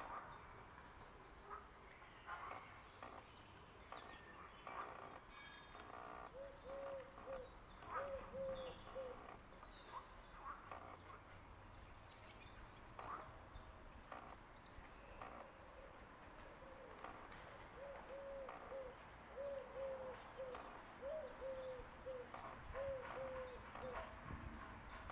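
Male mallard bathing: faint, irregular splashes and water flicks as it dips its head and throws water over its back. A bird coos in the background in repeated phrases of short, low notes, in two bouts.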